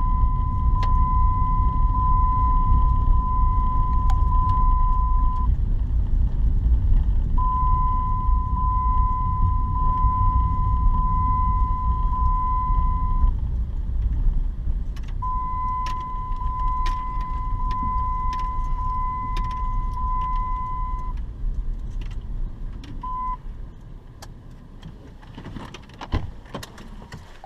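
Car seatbelt warning chime: a high beeping tone sounding in three runs of about six seconds each, with a short blip after them, over the low rumble of the vehicle driving. The rumble fades toward the end, with a few sharp clicks.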